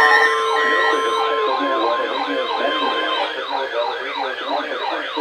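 Several electronic sirens wailing over one another in fast, repeated up-and-down sweeps. Beneath them is a steady high alarm tone, the NOAA Weather Radio warning alarm, which cuts off about three seconds in.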